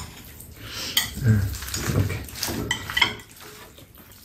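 Metal chopsticks clinking against bowls while noodles and vegetables are mixed: about four sharp clinks, each with a short ring, over soft rustling of the food.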